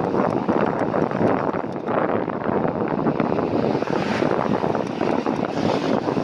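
Steady rush of wind over the microphone of a bicycle-mounted camera while riding, mixed with road and traffic noise.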